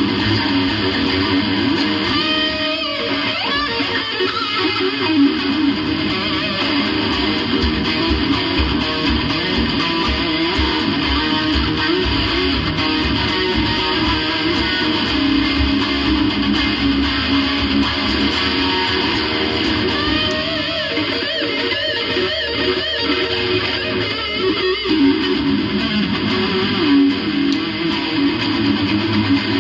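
Electric guitar played through a software amp simulation, strummed chords and riffs with bent notes in a few places.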